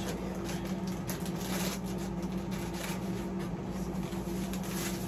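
Plastic wrapping of a Warheads Sour Popping Candy pack being handled and opened, crinkling and rustling in irregular short bursts over a steady low hum.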